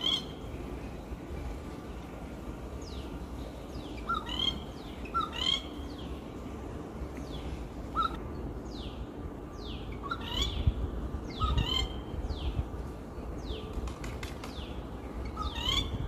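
Rufous treepie calling: short, loud, ringing call phrases of a few quick up-and-down notes, repeated about seven times at uneven gaps of one to four seconds. Faint thin downward-sliding notes sound between the calls.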